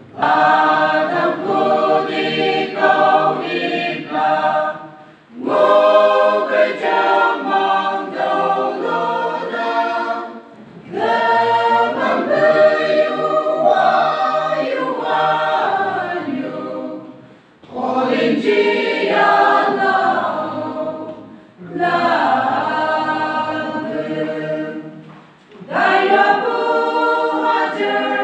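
Church choir singing unaccompanied in several voice parts, in phrases of a few seconds each with short breaks between them.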